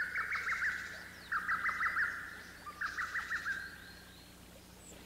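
A small songbird singing the same short phrase of quick, jagged notes three times, each about a second long and about a second and a half apart, the last fading out.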